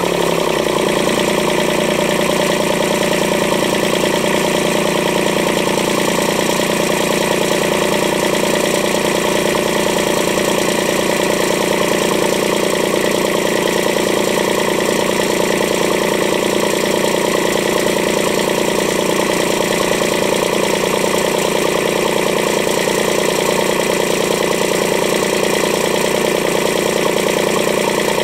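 Kubota D850 three-cylinder diesel engine, freshly tuned up, running steadily at an even idle. Its speed settles in the first half second, then holds constant.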